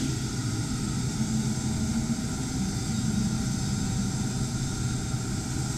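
Steady low machine hum with a faint hiss above it, even in level throughout.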